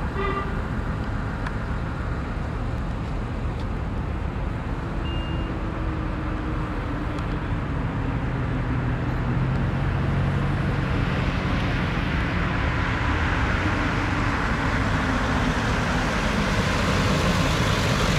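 Road traffic noise, with an ambulance's engine and tyres growing louder as it approaches and passes close, loudest near the end.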